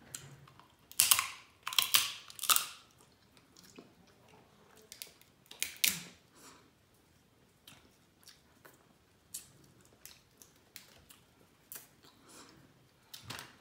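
Crab leg shells cracking and snapping as they are broken open and bitten, with chewing. Four loud cracks come close together a second or two in and another about six seconds in, then lighter clicks of shell.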